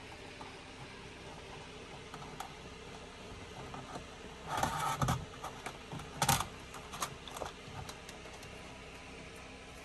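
Hand tools and cables being handled while wiring a caravan's solar panel: small clicks and clatter, a half-second scrape or rustle about halfway through, then a sharp knock and a few lighter clicks.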